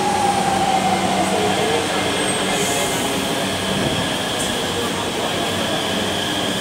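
RRTS RapidX electric train pulling into the station and slowing to a stop, with a steady rush of rolling noise. Its drive whine falls steadily in pitch over the first two or three seconds.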